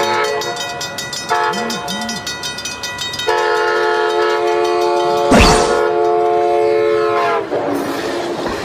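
Train horn blowing a long, steady multi-tone chord that turns louder and lower about three seconds in and stops about a second before the end. A short, sudden noise cuts across it about halfway through.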